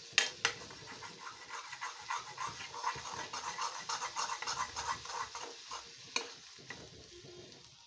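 Metal spatula stirring and scraping scrambled eggs around a metal kadhai on the stove: quick scratchy strokes, with a few sharp clanks against the pan just after the start and about six seconds in. The stirring eases off near the end.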